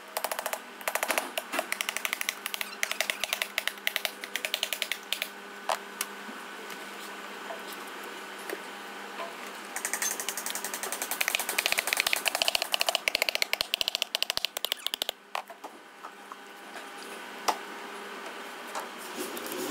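Rapid mechanical clicking and rattling in two long runs, the first in the opening seconds and the second from about halfway through, over a faint steady machine hum.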